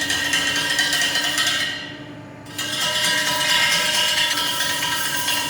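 A workshop machine running with a steady whine and dense rapid clicking, going quieter for about a second near the middle before picking up again.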